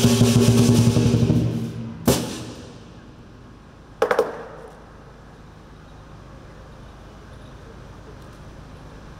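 Lion dance percussion (drum, gong and cymbals) playing loudly with ringing gong tones, then dying away after about two seconds. A sharp strike comes just after that and a brief cluster of strikes about four seconds in, and the rest is a low, steady hall background.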